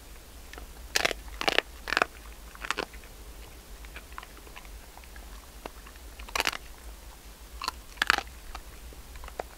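Husky crunching and chewing on a whole snowshoe hare carcass: sharp crunching bites in clusters about a second in, and again between six and eight seconds, with softer chewing in between.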